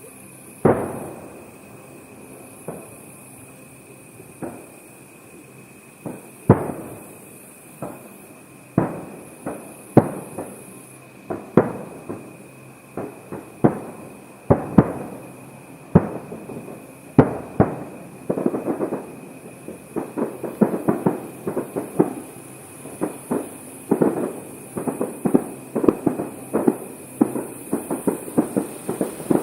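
Aerial firework shells bursting, each bang trailing off in a long echo. Single bursts come a few seconds apart at first, then from about eighteen seconds in they crowd into a rapid crackling string of bursts.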